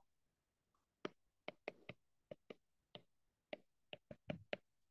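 Stylus tip tapping and clicking on a tablet's glass screen during handwriting: a quick, irregular run of about fifteen sharp taps, starting after a short pause about a second in.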